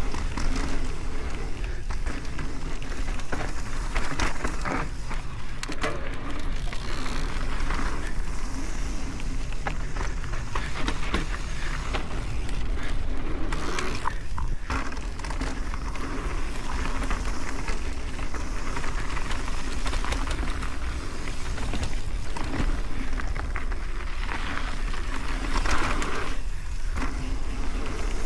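Mountain bike riding fast down a dirt flow trail: continuous tyre noise on dirt with many small clicks and rattles from the bike over a steady low rumble.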